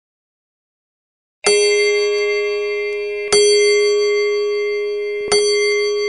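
A clock striking three times on the same bell-like note, starting about a second and a half in and spaced about two seconds apart. Each strike rings on and fades until the next.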